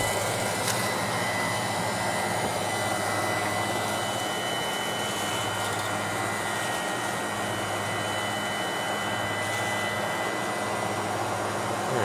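Freezer condensing unit running steadily, its condenser fan motors blowing with a constant hum.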